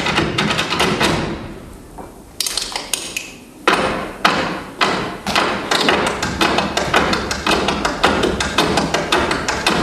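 Irish-dance hard shoes beating on the stage floor: a fast volley of taps that dies away about a second in, a few single loud stamps about half a second apart, then a rapid, even run of taps.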